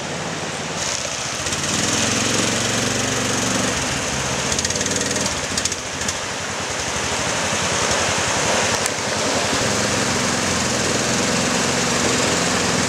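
A small boat engine running steadily, its speed shifting up and down a few times, over a steady hiss.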